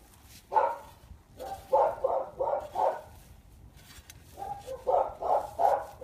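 A dog barking repeatedly: a single bark, then two quick runs of about four barks each.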